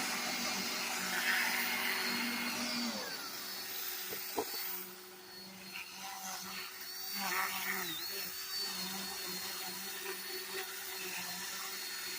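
Power tool spinning a Sand-O-Flex flap sanding wheel on carved wood: a steady motor whine with a sanding hiss, the pitch dipping briefly a couple of times.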